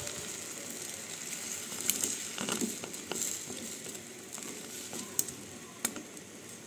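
Faint, steady sizzling of a kadhai of vegetables, masala water and instant noodles heating on the stove, with a few light taps of a wooden spatula against the pan.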